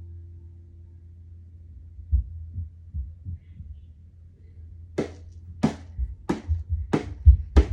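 The ringing tone of a singing bowl dies away over the first two seconds, over a low steady hum. Muffled low thumps follow, like children's footsteps on the floor above, heard as a heartbeat-like pulse. About five seconds in, a regular run of sharper knocks begins, roughly three every two seconds.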